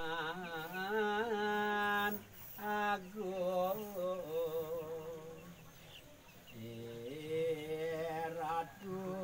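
A single voice chanting a Balinese Hindu prayer in long held notes with slow pitch bends. It breaks off about two seconds in and dips quieter a little past the middle before carrying on.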